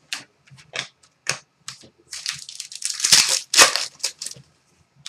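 Trading cards being handled: a few sharp flicks and snaps of card stock, then a couple of seconds of dense crinkling and rustling of packaging.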